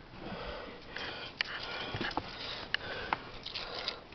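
Handheld camera handling noise: a rustling hiss close to the microphone, with a few sharp clicks about a second and a half, two and three-quarter, and three seconds in.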